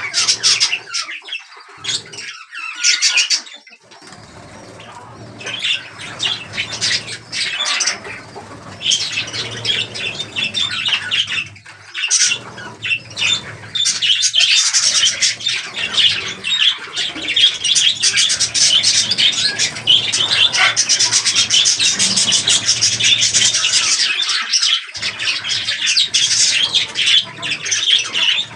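A flock of budgerigars chattering and chirping together in quick, overlapping calls. The calls grow busier and louder about halfway through.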